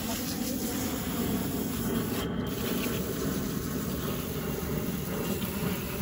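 Garden hose spray nozzle hissing steadily as it rinses soil off freshly dug sweet potatoes on the grass, while gloved hands rub the tubers clean.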